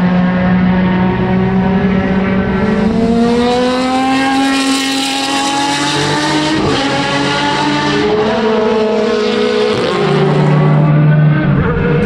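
Jaguar XJR-12 Group C car's V12 engine accelerating out of a slow corner, revs climbing with an upshift about halfway through and another near the end.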